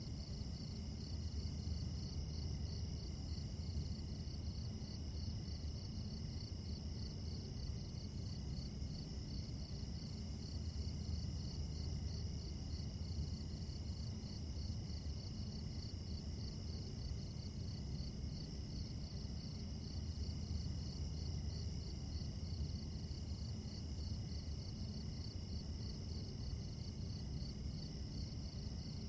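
Crickets chirping at night in a steady, evenly pulsing chorus, with a few steady high insect tones and a low rumble underneath.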